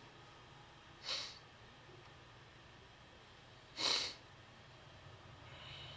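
Two short, faint breaths forced through the nose, one about a second in and another near four seconds.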